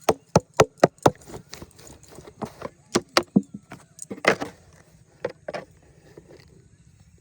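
A rapid series of sharp knocks or slaps, about four a second at first, then irregular, with a few longer, noisier hits later on.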